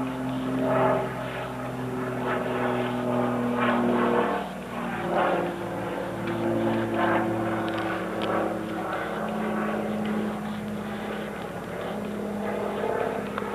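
A steady engine drone that drops slightly in pitch twice.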